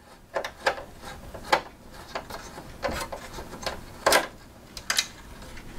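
A screw being turned out of a computer's sheet-metal case with a screwdriver: irregular scraping clicks of metal on metal, the loudest about four seconds in.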